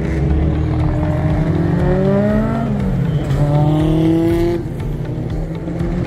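Car engines from a procession of cars driving round a racing circuit, running steadily, with engine notes rising in pitch twice in the middle as cars accelerate; the sound eases a little near the end.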